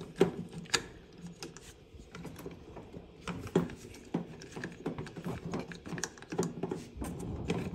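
Irregular plastic clicks and knocks from a Samsung front-loader's drain pump filter cap as it is pressed in and twisted loose by hand.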